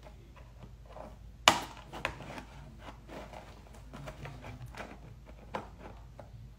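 Small plastic and cardboard toy packaging being handled and opened by hand: soft rustling and small clicks, with one sharp snap about a second and a half in and a smaller one shortly after.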